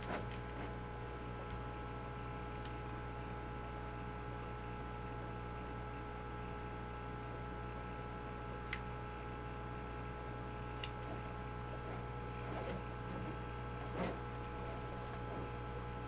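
A steady electrical hum made of several pitches, with a few sharp clicks from handling the plastic parts, the loudest near the end.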